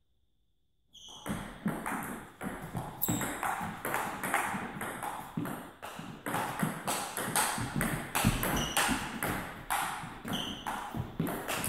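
Table tennis rally: a plastic ball clicking off rackets and the table, about two to three sharp knocks a second, starting about a second in after near silence.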